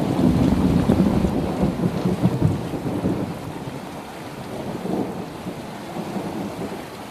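Thunder rumbling over steady rain: a loud low rumble in the first few seconds that fades away, with a smaller swell near the middle, leaving the rain hiss.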